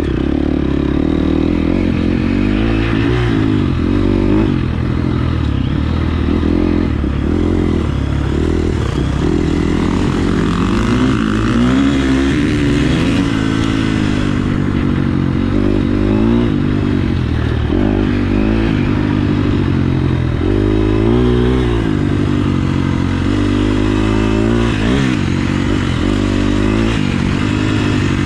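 KTM 350 SX-F motocross bike's single-cylinder four-stroke engine running hard while being ridden, its pitch repeatedly rising and falling with the throttle.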